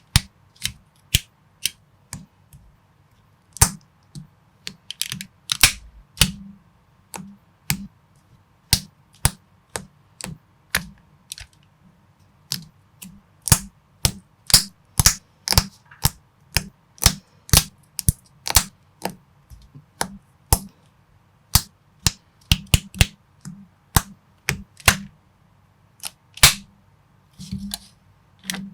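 Plastic building bricks clicking and snapping together under the fingers: a steady run of sharp clicks about two a second, with a brief soft rustle near the end.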